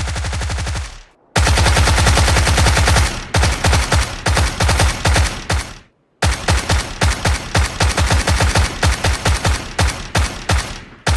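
Thompson submachine gun firing full-auto in rapid bursts: a long burst that stops about a second in, another long burst, then a string of short bursts of a few rounds each, broken by a brief pause about halfway through.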